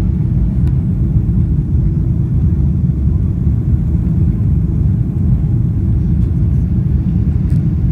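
Steady low rumble of a Boeing 747-400 in flight, engine and airflow noise heard inside the passenger cabin during the climb after takeoff.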